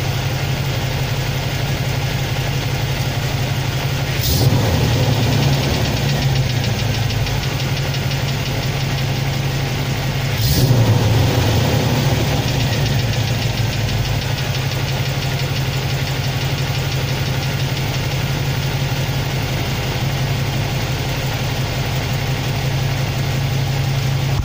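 Chevrolet 350 TBI V8 idling steadily, with a light, even valve-lifter tick over the engine note: the lifters are collapsed, and ATF has been added to the oil to try to free them. The engine briefly gets louder twice, about 4 and 10 seconds in.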